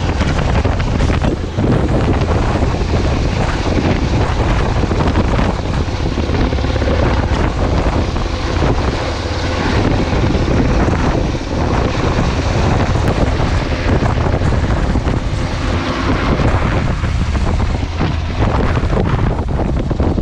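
Coastguard search-and-rescue helicopter hovering and manoeuvring low overhead: loud, steady rotor and turbine noise, with its downwash buffeting the microphone.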